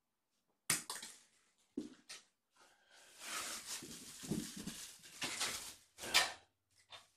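Fabric rustling and flapping as a fleece pet blanket is lifted and shaken, between a few sharp knocks of handling early on and one loud sharp burst about six seconds in.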